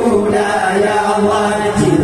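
A large group of voices chanting together in unison, holding long notes.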